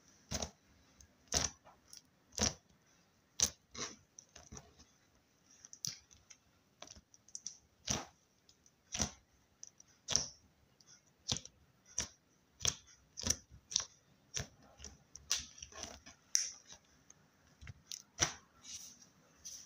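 Slime being played with, giving off sharp, irregular pops and clicks about once or twice a second.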